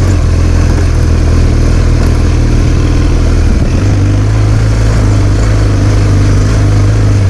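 Adventure motorcycle engine running while riding, a steady low engine note that shifts about halfway through, under a constant rush of noise.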